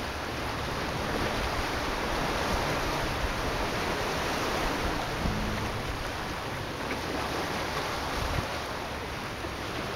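Small sea waves washing against a rocky shoreline, a steady hiss of water that swells and eases, with wind rumbling on the microphone.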